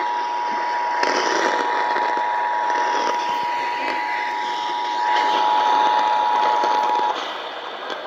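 Emergency Alert System two-tone attention signal, 853 Hz and 960 Hz sounding together, heard over AM radio hiss through a portable radio's speaker; the tone cuts off about seven seconds in, leaving the hiss.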